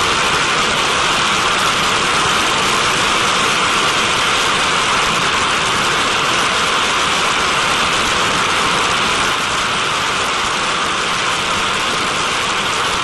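Turbojet engine of a TMS-65 decontamination truck running steadily, a dense rushing hiss of jet exhaust, dropping slightly in level about nine and a half seconds in.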